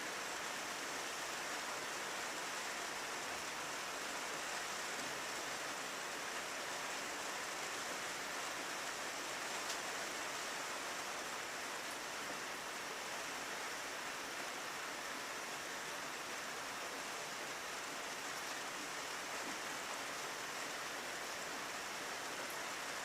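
Rain falling on a windowpane: a steady hiss, with an occasional faint tick of a single drop.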